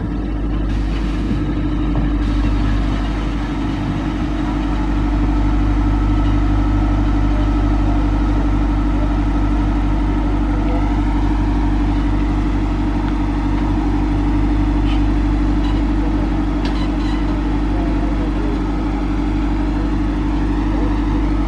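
An engine idling steadily, a low, even hum with a droning tone above it.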